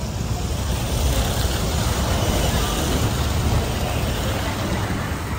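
A road vehicle passing close by. Its noise swells over the first few seconds and fades near the end.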